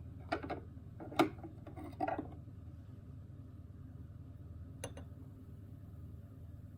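A few light knocks and clinks of objects being handled, the loudest about a second in, then a single sharp tap near the five-second mark.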